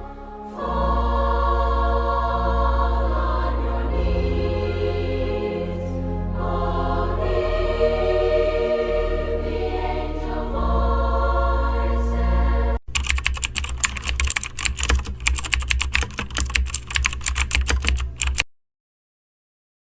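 Music with sustained chords over a heavy bass, cutting off about 12 seconds in, followed by about five seconds of rapid computer-keyboard typing clicks, then silence near the end.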